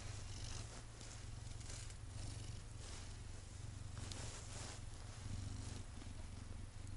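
Domestic cat purring steadily, a low, rapid rumble, while its chin and neck are being stroked, with soft rustling of the hand on its fur.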